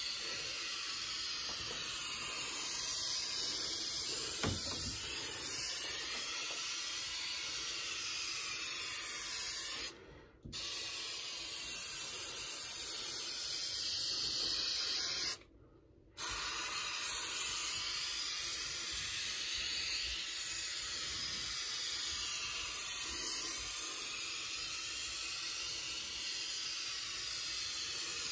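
Spray adhesive being sprayed in a long steady hiss, laid on thick. The spray stops briefly twice, about ten and about fifteen seconds in.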